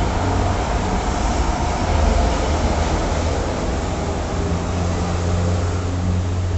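Busy road traffic, with a loud, steady, low engine drone.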